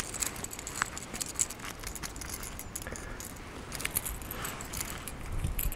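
Light metallic clinks and quick clicks, irregular and scattered, from a lure's treble hooks jingling as a small foul-hooked perch is taken off the hooks.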